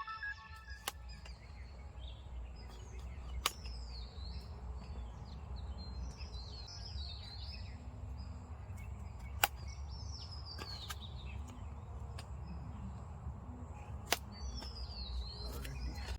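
Forest birds calling with short, repeated chirps that sweep downward, over a steady low rumble. Four sharp clicks stand out: near the start, a few seconds in, about halfway, and near the end.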